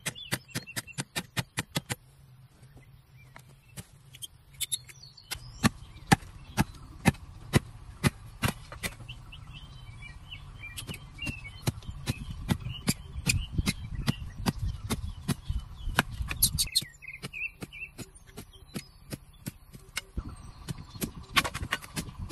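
Quick, rapid hammer taps on bamboo for about two seconds, then sharp knocks about twice a second as a machete works bamboo strips, and a fast run of taps again near the end. Birds chirp faintly in the background.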